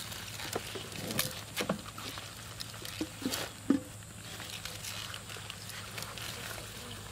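Water hyacinth leaves and stems rustling and crackling as they are pulled by hand off a fishing net, in irregular handfuls with a few sharper snaps in the middle.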